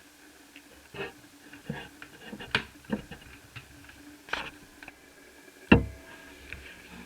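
Irregular clicks, taps and knocks of small parts being handled while working on a laptop, with one louder knock near the end.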